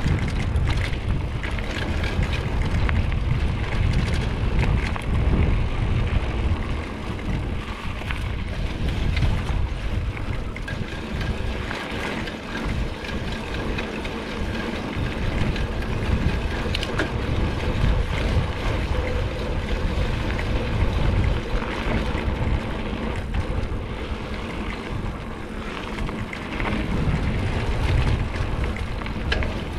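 Wind rushing over the camera microphone and mountain bike tyres rolling over a dirt trail, with frequent small rattles and knocks from the bike over rough ground.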